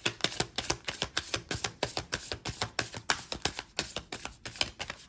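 A deck of cards being shuffled by hand: a fast run of crisp card slaps and clicks, about eight a second, that stops just before the end.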